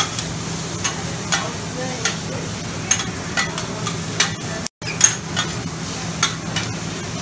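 Shrimp, onions and rice noodles sizzling on a steel flat-top Mongolian barbecue griddle while metal spatulas scrape and clack against the plate in quick, irregular strokes. The sound drops out for an instant a little past halfway.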